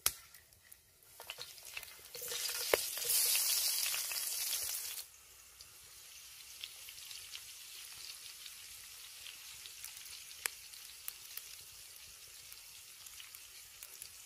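Potato pieces frying in hot fat in a cast-iron pan. A loud sizzle surges for about three seconds, then settles to a steady, quieter sizzle with scattered crackling pops.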